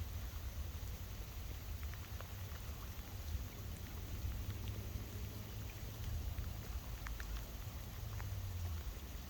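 Wind rumbling on the microphone, with scattered light ticks of raindrops over a faint steady hiss of rain.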